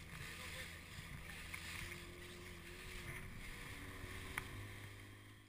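Small motorboat underway: its engine running with a steady low hum under the rush of the wake and wind on the microphone. A sharp knock about four seconds in, and the sound fades out at the end.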